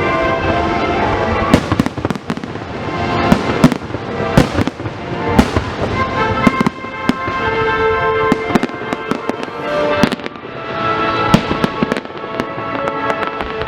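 Fireworks bursting in quick succession, sharp bangs and crackles, over music with sustained notes.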